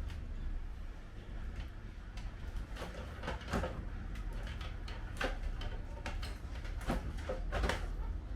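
KDK V56VK ceiling fan squeaking, a string of short, irregular squeaks over a steady low hum, thickest in the second half. The technician puts the noise down to a worn motor bearing.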